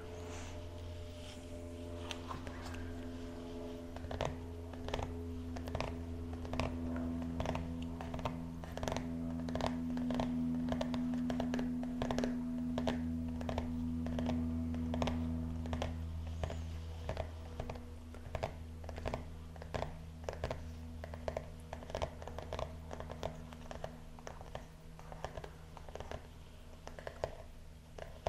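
Hands handling a small notebook at a wooden desk: a run of light clicks and taps, one or two a second, over a steady low hum.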